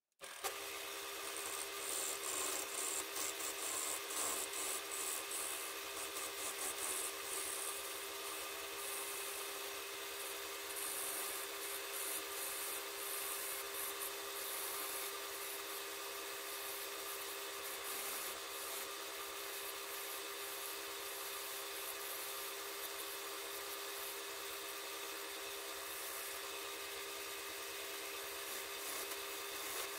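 Wood lathe running with a steady motor hum while a turning tool cuts the spinning wood, a rough scraping hiss of shavings over it. The sound comes in abruptly at the very start, and the cutting is more uneven in the first half.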